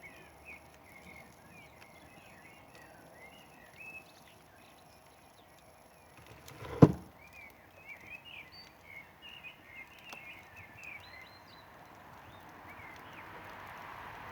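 Outdoor ambience of many small birds chirping in a busy chatter, with faint crackles from a campfire. A single loud sharp crack about halfway through, and a hiss that slowly swells near the end.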